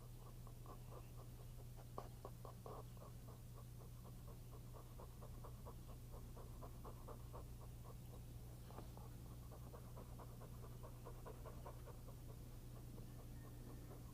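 Springer Spaniel panting quickly and faintly, about four breaths a second, over a steady low hum.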